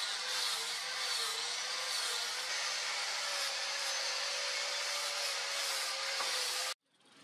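Angle grinder with an abrasive disc sanding a wooden knife handle block: a steady motor whine under the hiss of the disc on the wood. It cuts off suddenly near the end.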